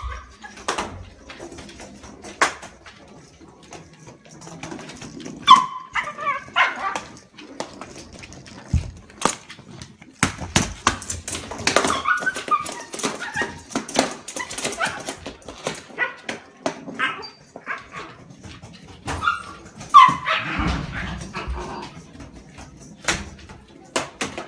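A Shiba Inu barking, yipping and whimpering in short, scattered outbursts, loudest about five seconds in and again around twenty seconds. Sharp knocks and clicks are scattered between the calls.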